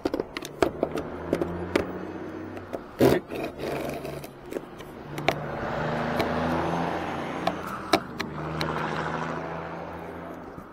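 A screwdriver clicks and scrapes against a truck's roof-mounted plastic cab marker light as it is being taken off, with one louder knock about three seconds in. Over the second half a passing vehicle swells and fades in the background.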